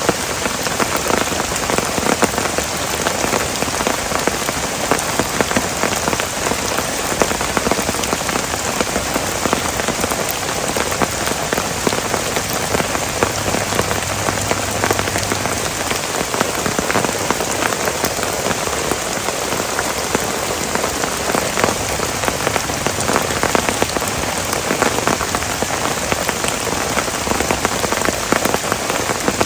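Heavy rain falling steadily on a tent, a dense unbroken wash of drop impacts.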